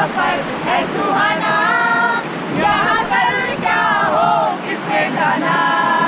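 Several young women's voices singing together in long, wavering notes, over the steady rush of river water around the raft.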